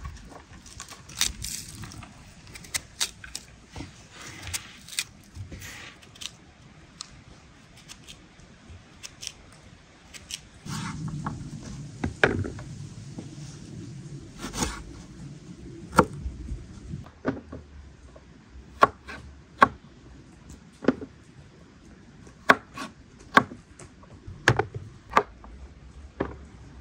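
Kitchen knife cutting raw quince on a wooden board: irregular sharp knocks of the blade striking the board, coming more often in the second half.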